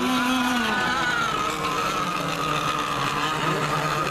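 Radio-controlled racing boats running flat out, their small motors making a high whine of several overlapping pitches that shift as the boats race and turn.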